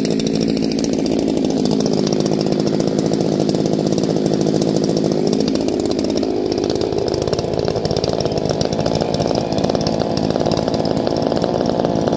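Two-stroke chainsaw running steadily, its pitch shifting a little about six seconds in.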